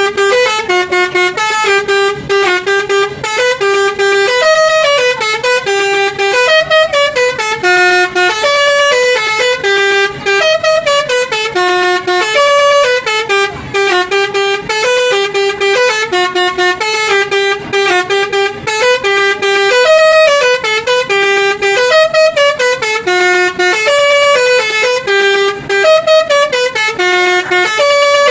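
Telolet Basuri melodic bus horn playing a tune: a loud, continuous run of stepped horn notes that goes on without a break.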